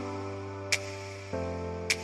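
Soft background music: held chords with a light percussive tick on the beat.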